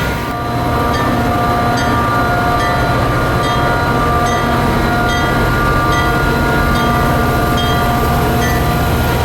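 Metra diesel commuter train running at the station: a steady loud drone with several held tones, and a bell ringing at an even pace, about one strike every three-quarters of a second.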